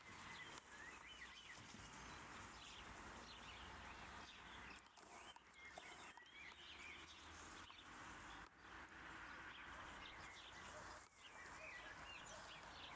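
Faint birdsong, many short chirps and twitters over a steady outdoor hiss.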